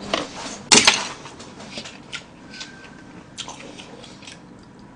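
Close-miked eating of hot brown-rice nurungji soup: two short, loud sucking bursts in the first second as he takes it off the spoon, then quiet chewing with a few small clicks.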